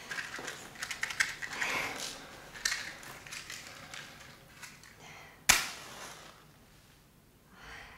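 A matchbox rustled and scratched, then a match struck with one sharp crack about five and a half seconds in, fading over about half a second.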